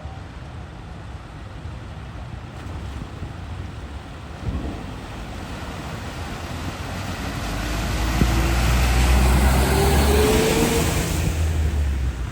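A vehicle driving through deep floodwater: its engine note rises as it comes closer, and the rush of water spray and wash builds to its loudest near the end before easing.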